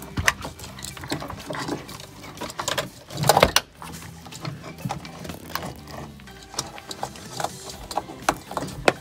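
Car wiring harness and its plastic connectors being handled and fed through a trunk-floor opening: irregular clicking and rustling, with a louder rustle and scrape about three and a half seconds in.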